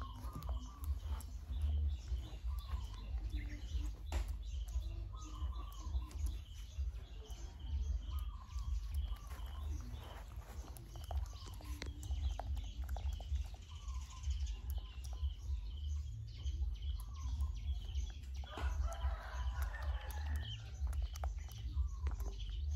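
Chickens clucking and calling, with short chirps recurring every second or two and a busier stretch of calls near the end, over a steady low rumble and small close clicks.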